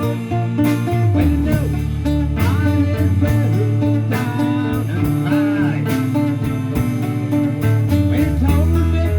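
A band playing a song, with guitar prominent over a moving bass line.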